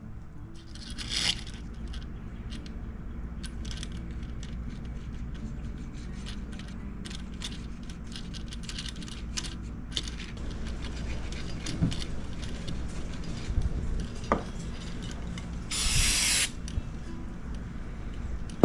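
Small clicks and taps of hands working the thin laser-cut wooden parts of a model kayak at the bench, over a steady low hum. A brief hiss comes about a second in, and a louder half-second hiss about sixteen seconds in.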